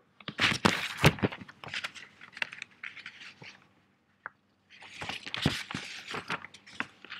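Irregular rustling and scraping noise with sharp clicks, in two spells separated by a short quiet gap about four seconds in.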